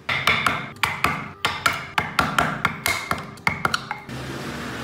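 A wood-carving chisel struck again and again, cutting into the wooden body: quick, uneven knocks, about four or five a second. About four seconds in the knocking stops and a steadier, softer noise follows.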